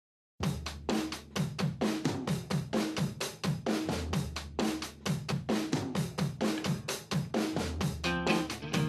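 Background music: a fast drum-kit beat with kick drum, snare and cymbals, starting about half a second in. A guitar joins near the end.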